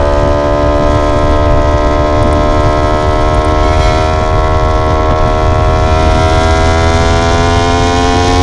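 Yamaha R1 inline-four engine pulling steadily under way, its note held high and climbing slowly as the bike gains speed, with wind rumble underneath.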